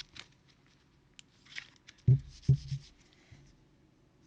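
Football trading cards being handled, with light rustling, sliding and small clicks as the cards are flipped. Two short dull knocks come about two seconds in, half a second apart.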